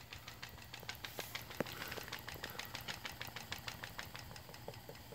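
Stuart Williamson model vertical steam engine running on live steam, chugging in a quick, even beat of about six strokes a second.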